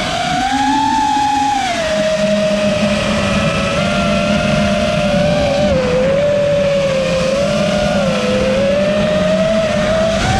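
A 5-inch FPV racing quadcopter's motors and propellers whining at a fairly steady pitch that sags and swells with the throttle, dipping about halfway through and climbing again near the end.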